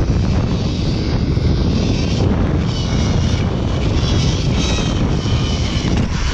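Wind rushing over the microphone and a zip-line trolley running fast along its steel cable, a steady roar with a faint high whine from about two seconds in.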